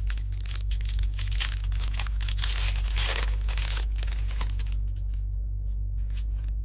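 Foil booster pack wrapper crinkling and tearing open for about five seconds, then a few light rustles, over a steady low hum.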